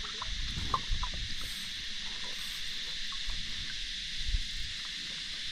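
Open-air ambience on calm water: a steady high hiss with a low rumble underneath, and a few light taps and drips in the first second.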